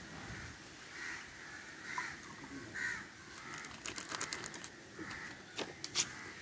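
Crows cawing, short calls about once a second. In the second half come a run of sharp crinkles and clicks from a plastic bag being handled.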